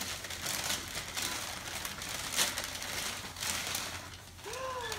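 Brown paper gift wrapping crinkling and rustling in irregular handfuls as a present is pulled open. A brief child's vocal sound starts near the end.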